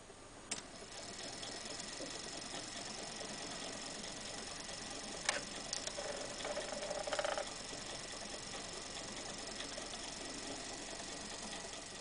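Small homemade candle-heated Stirling engine running and turning a small DC motor, its mechanism ticking steadily and growing louder over the first second or so. A couple of sharp clicks and a brief hum about seven seconds in.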